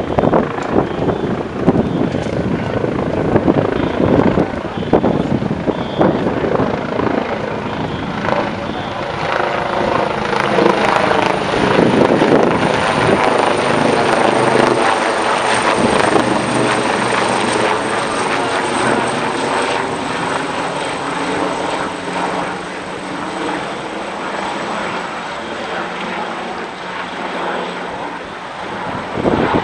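Police helicopter flying overhead: the rotor beats steadily under a thin, high turbine whine, loudest around the middle as it passes closest, then easing off a little toward the end.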